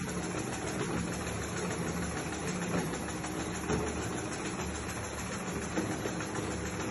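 Dual-action exercise bike's flywheel whirring steadily as it is pedalled.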